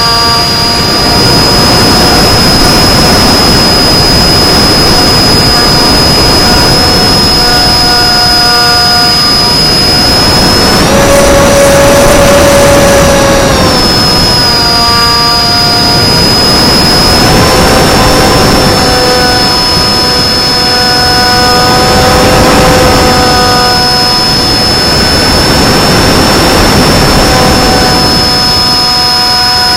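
Electric motor and propeller of an FPV flying wing whining steadily in flight over a heavy rush of wind noise. The pitch steps up for a couple of seconds about eleven seconds in, then settles back, following the throttle.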